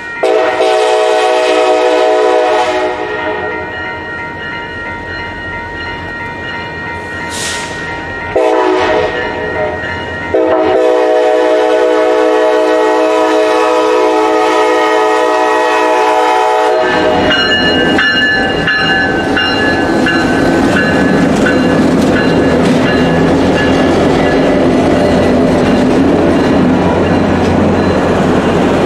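CSX 9993, an EMD F40PH locomotive, sounding its multi-chime air horn for the grade crossing in three blasts, the last held about six seconds. After that the locomotive and its passenger cars roll past with engine rumble and wheel noise.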